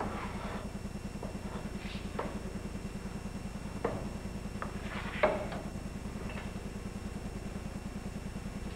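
Table saw's rip fence being slid along its rail and set: a few light knocks and clicks, the clearest about four and five seconds in, over a steady low pulsing hum.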